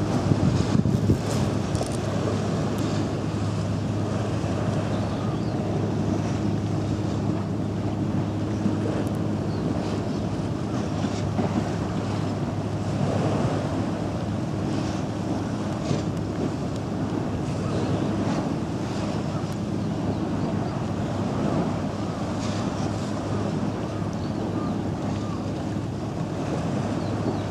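A steady low machine hum under a constant rushing noise like wind on the microphone, with scattered light clicks.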